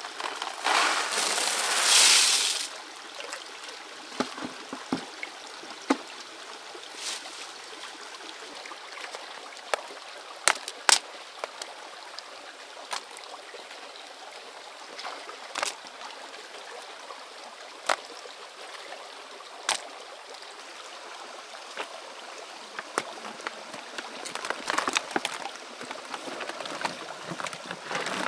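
Water running and trickling steadily, with a loud splash or gush about a second in and scattered small knocks and clicks throughout.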